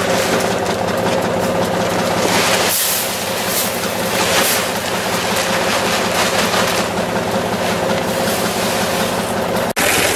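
John Deere compact tractor's diesel engine idling steadily, with the hiss and rattle of urea pellets poured from a bag into the spreader's plastic hopper a few seconds in.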